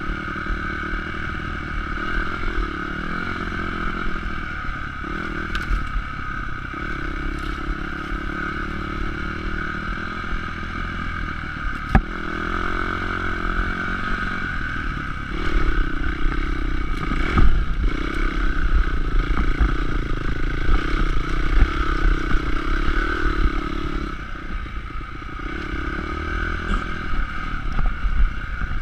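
Honda CRF250X's single-cylinder four-stroke engine running on a dirt bike riding rough single-track, its pitch rising and falling with the throttle, heard from a handlebar-mounted camera. Chassis clatter runs through it, with a couple of sharp knocks, the loudest about two-thirds of the way in.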